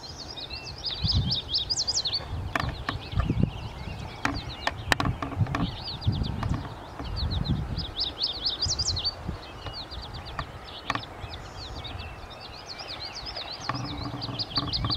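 Songbirds singing: bouts of rapid, high chirping notes repeated every few seconds. Irregular low rumbles and a few sharp clicks sound underneath.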